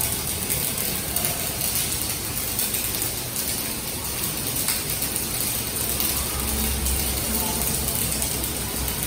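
Stick (arc) welding: the electrode's arc burning with a steady, dense crackling hiss as the bead is laid. It cuts off suddenly at the very end when the arc is broken.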